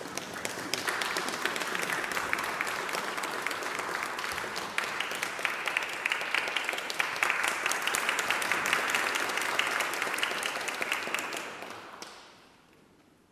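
Audience applauding steadily, then dying away near the end.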